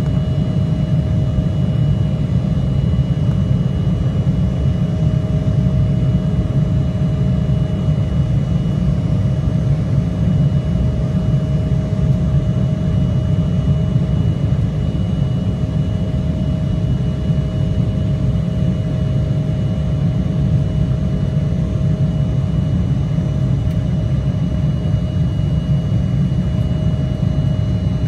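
Cabin noise of an Embraer 175 climbing after takeoff: the steady low rumble of its two GE CF34 turbofan engines and the airflow past the fuselage, with a thin steady whine over it.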